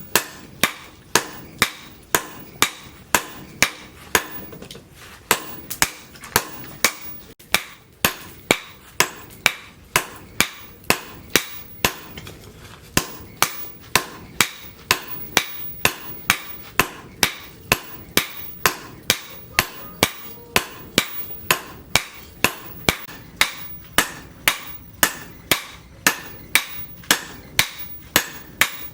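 Hammer blows on hot leaf-spring steel over an anvil, a steady beat of about two strikes a second, each with a short metallic ring. There is a brief break about five seconds in.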